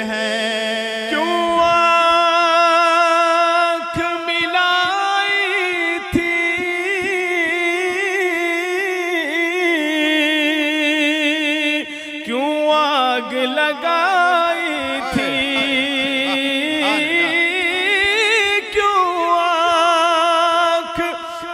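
A man's voice singing an Urdu naat unaccompanied: long, drawn-out wordless notes with a wavering vibrato, gliding to a new pitch now and then.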